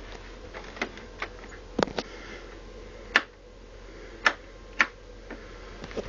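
Argos Value dehumidifier running with a steady fan hum, overlaid by about seven sharp, irregular clicks and knocks.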